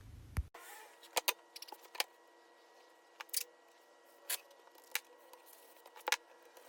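A few light, sharp clicks and taps, scattered a second or so apart over a faint steady hum: taped-up birch plywood shelf pieces being handled and set down on a workbench.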